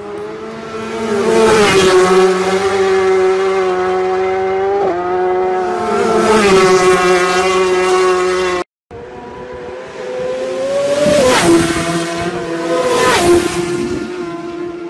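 Racing motorcycles passing at full speed one after another, each high engine note swelling and then dropping in pitch as the bike goes by. The sound breaks off for an instant a little past halfway, then more bikes scream past.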